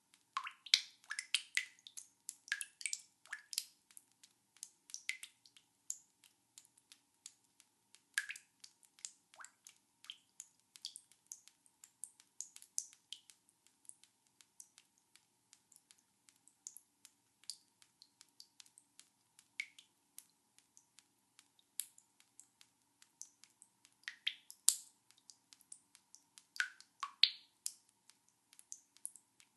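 Water dripping fast, many small drops a second, with a few louder ringing plinks among them.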